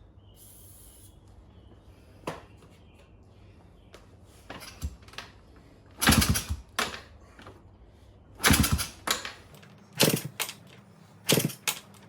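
Honda CT125 four-stroke single being kicked over, a string of short mechanical clatters from the kickstarter and the engine turning over, louder and more frequent in the second half, without the engine catching and running.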